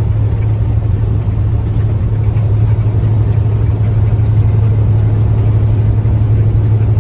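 International log truck's diesel engine running steadily under load as the truck drives through mud, a constant low drone.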